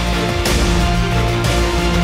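Driving soundtrack music with sustained low notes and a sharp accent hit about once a second.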